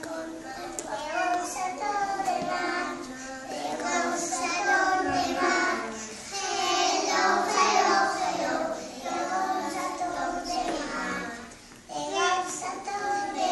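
A group of four-year-old children singing together, their voices overlapping, with a brief pause about two-thirds of the way through.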